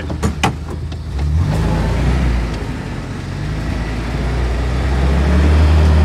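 UAZ Bukhanka van's engine running under load as it crawls along in low-range gear, heard from inside the cab. A few short clicks come near the start. About a second and a half in the engine note steps up, and it grows louder toward the end.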